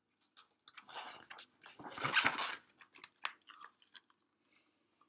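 Pages of a glossy picture book being turned and handled: a run of paper rustling and crinkling, loudest about two seconds in, followed by a few soft taps and rustles as the page is settled.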